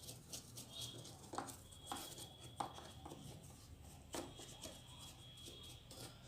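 Faint, irregular taps and scrapes of a paintbrush dabbing and rubbing paint onto a rough cement-coated surface.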